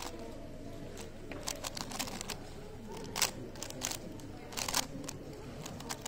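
A 3x3 speedcube being turned fast by hand during a solve: irregular runs of quick plastic clicks and clacks as the layers snap round.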